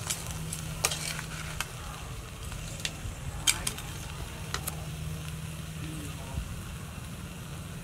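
Crabs frying in a wok with a steady sizzle, while a metal ladle stirs them and clinks and scrapes against the pan several times at irregular moments, loudest about three and a half seconds in.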